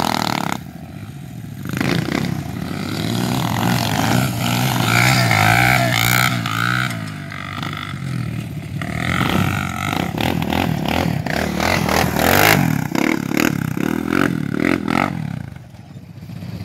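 ATV and small dirt bike engines revving hard, rising and falling in pitch again and again under throttle, with a brief drop in loudness near the end.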